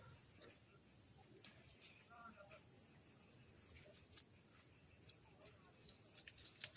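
Crickets chirping: a steady, high-pitched pulsing trill, with a few faint clicks.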